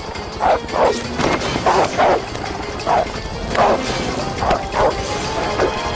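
Police dog barking repeatedly in short, sharp barks about every half second, over background music.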